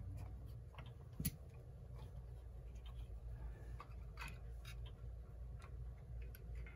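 Scattered light metallic clicks and taps of a tool working the bent-over metal tabs that hold the face and glass rim of a Telechron desk clock, the sharpest about a second in, over a low steady hum.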